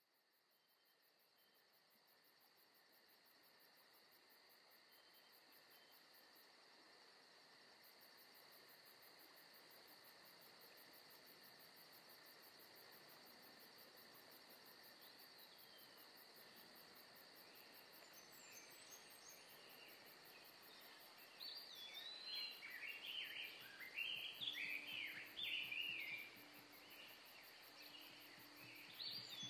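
Faint nature ambience fading in from silence: insects trilling steadily, with birds chirping from about two-thirds of the way in, busiest near the end.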